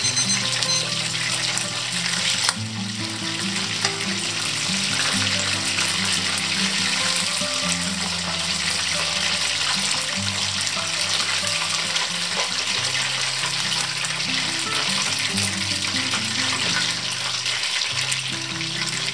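Hot oil sizzling steadily as food deep-fries, with background music playing.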